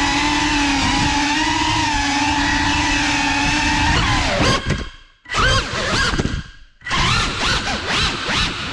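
GEPRC Cinelog35 cinewhoop drone's ducted propellers and motors whining at a steady pitch. About four and a half seconds in the whine nearly cuts out, twice, as the throttle is dropped. Then it surges back with fast rising and falling pitch as the throttle is punched and eased.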